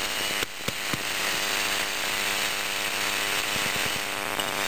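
Opened Xbox hard drive's platter spinning on its spindle motor: a steady whir with a faint hum. A couple of light clicks sound about half a second in.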